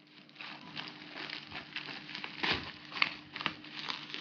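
Plastic parcel packaging crinkling and crackling in irregular bursts as it is handled and opened by hand.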